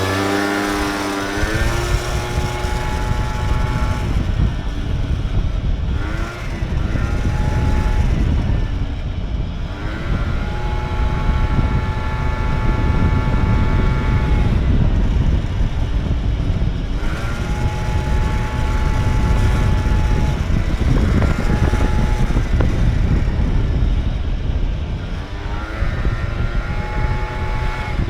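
Peugeot Speedfight 2 scooter's two-stroke engine running and revving, its pitch climbing at the start, then holding and rising and falling again several times over a heavy low rumble. The scooter is making a crackling noise whose cause the owner does not know.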